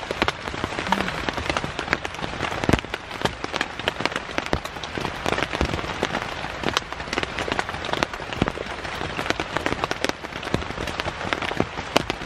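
Heavy rain falling on a tent, heard from inside: a dense, steady hiss with many sharp individual drop hits.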